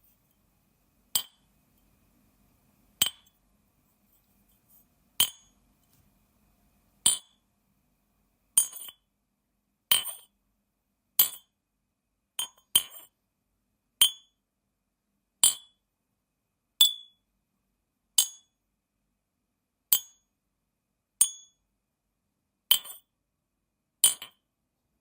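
Glass being struck in a series of single clinks, about one every second or two, each a short bright ring that dies away quickly; a few strikes come in quick pairs.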